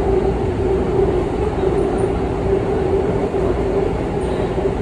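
Seoul Subway Line 2 electric train running at speed, heard from inside the carriage: a steady rumble of wheels and running gear with a steady hum.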